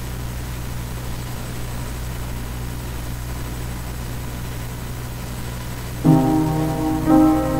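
A steady low hum for about six seconds, then an upright piano starts playing: a chord struck about six seconds in and another a second later, both ringing on.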